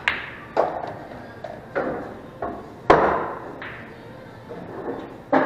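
Pool cue striking the cue ball, followed by a string of sharp clacks and knocks as billiard balls hit each other and the cushions, each ringing briefly; the loudest knock comes about three seconds in.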